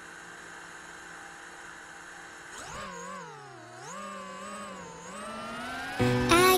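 QAV210 FPV quadcopter: a steady electrical hum, then about two and a half seconds in the brushless motors spin up for lift-off, their whine rising and falling with the throttle. Loud music comes in near the end.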